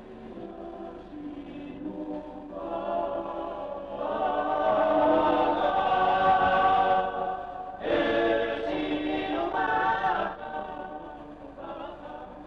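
A choir singing a slow song in long held notes. It swells louder about four seconds in, breaks off briefly near eight seconds, and fades toward the end.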